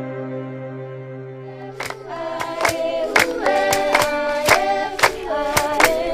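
Soft ambient music fades out. About two seconds in, a group of voices starts singing a traditional dance chant, with sharp rhythmic hand claps about three a second.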